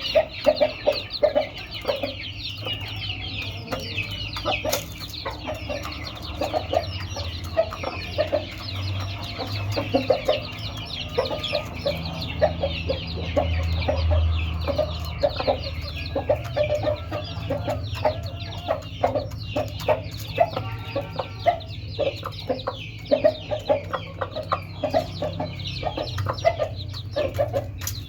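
Aseel hen clucking in short repeated calls while her newly hatched chicks peep constantly in high, quick chirps, over a low steady hum.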